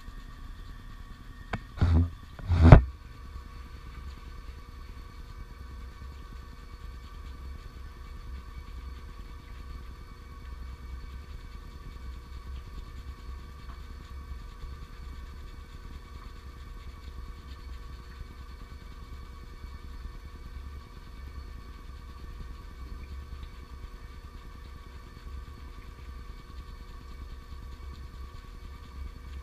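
A steady low mechanical hum with several steady tones above it, and two loud knocks about two seconds in, the second the louder.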